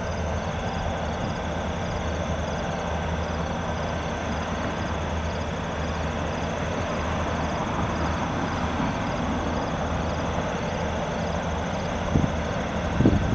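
Diesel-powered train running steadily with a low engine drone and rail noise. Near the end, a couple of sharp low gusts buffet the microphone.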